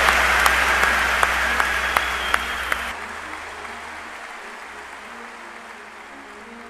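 Applause from a large arena audience, with many individual claps. It drops sharply about three seconds in and then keeps fading.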